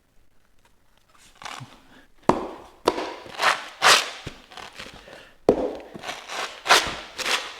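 Handling noise from fitting pads onto an electric unicycle's shell: a series of short knocks and scuffs, about seven, starting about two seconds in.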